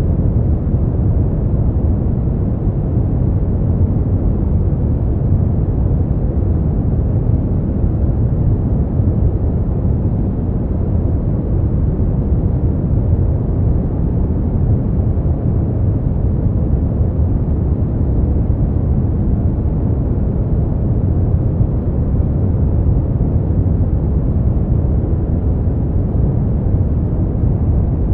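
Steady, unchanging noise track, a deep even rush strongest in the bass and fading out toward the treble, closer in sound to brown noise than to bright white noise.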